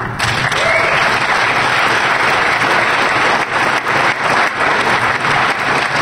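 Audience applauding: many people clapping, starting suddenly and holding steady.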